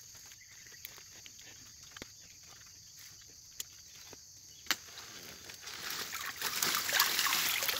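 Rustling and crackling of ferns and dry palm fronds as a wire-mesh fish trap is hauled out of the undergrowth. It starts faint with a few single clicks and grows louder over the last couple of seconds, over a steady high hiss.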